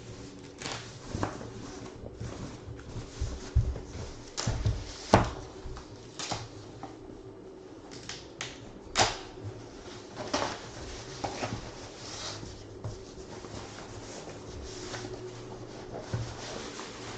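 Hands opening and handling a box of trading cards: irregular clicks, taps and rustles of cardboard and card holders, over a low steady hum.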